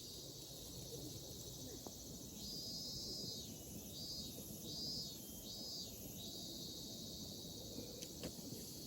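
Insects calling steadily in a high band, swelling four times in arching pulses a few seconds in, over a faint, even low background hiss.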